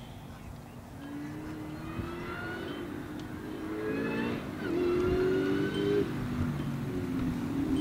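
Ford Mustang engine revving up and easing off again and again as the car is driven hard through an autocross cone course. The sound grows louder from about a second in as the car comes closer.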